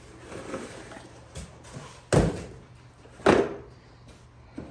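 Cardboard packaging being handled, with two loud thumps about a second apart and lighter knocks and rustling around them.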